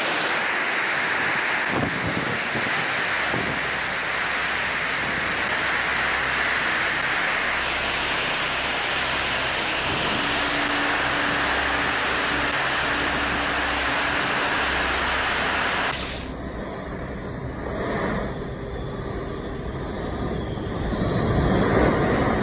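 Storm wind and driving rain rushing steadily in a dense, unbroken roar. About sixteen seconds in it cuts to a different, somewhat quieter rushing noise.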